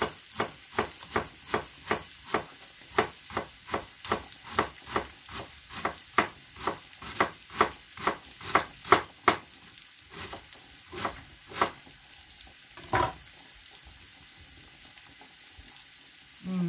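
Kitchen knife slicing a head of cabbage on a plastic cutting board: steady chops about two or three a second, thinning out and stopping about ten seconds in, followed by one louder knock a few seconds later.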